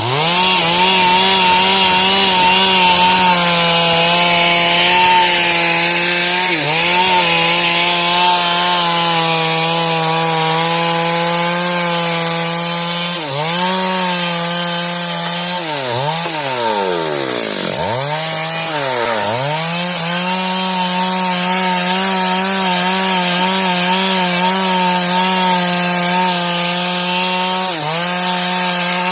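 Stihl MS 382 two-stroke chainsaw cutting dry wood, its engine held at high revs under load. The pitch dips briefly a few times, most deeply around the middle, and climbs back each time.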